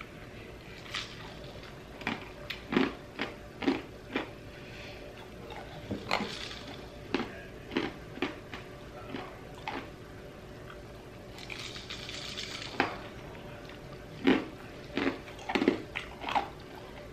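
A person chewing mouthfuls of juice-soaked crushed ice: a string of short, irregular crunches.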